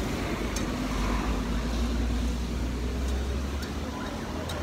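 A road vehicle driving past close by, its engine and tyres giving a steady low rumble that fades about four seconds in.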